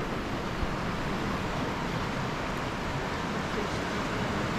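Steady rushing of a river flowing over rocks, an even wash of noise without change.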